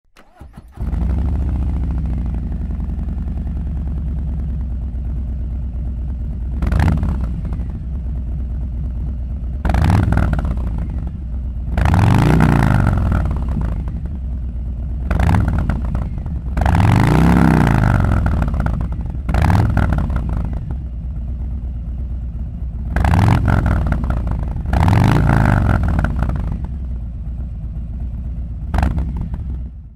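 Harley-Davidson Low Rider ST's Milwaukee-Eight 117 V-twin breathing through a Zard full racing exhaust system. It fires up about a second in and idles, then is revved in about nine throttle blips, some short and some held longer, each rising and falling in pitch.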